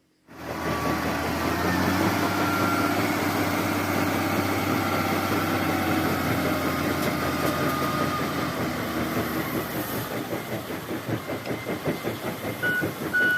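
Wheel loader's diesel engine running steadily, its sound starting to pulse about ten seconds in; a reversing beeper starts beeping near the end.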